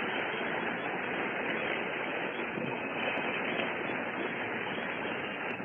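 A congregation applauding steadily, on an old recording whose sound is cut off above the mid-highs.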